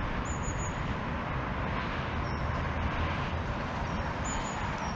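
Steady road-traffic noise, with a few short, faint high chirps.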